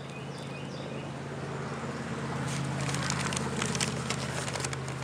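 Highway traffic hum, swelling as a vehicle passes midway and easing off again. Crisp crackling from fried chicken being eaten and handled in its paper wrapper close by in the second half, and a few faint bird chirps in the first second.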